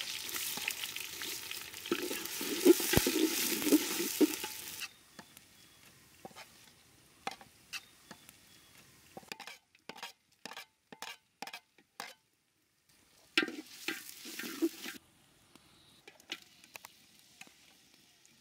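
Sliced onions dropped into hot oil in an aluminium pot, sizzling loudly for about the first five seconds. Scattered clicks and scrapes follow, then a second, shorter burst of sizzling about 13 seconds in as more ingredients hit the hot oil.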